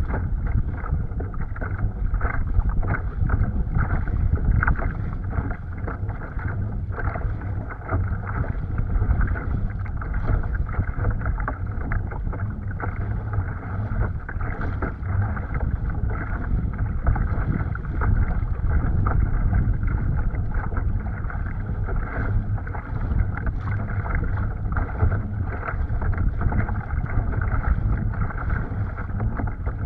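Strong wind buffeting the microphone, with choppy water splashing and rushing along a kayak's hull as it moves through the chop. It gusts unevenly throughout, with no let-up.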